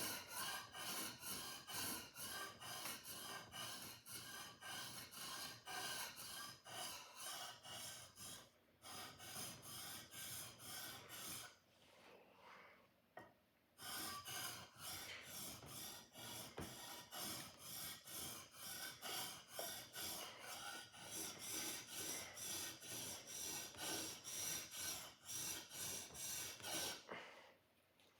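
A sword blade being sharpened: quick back-and-forth scraping strokes of the sharpener along the steel, a few strokes a second, pausing for about two seconds midway before resuming.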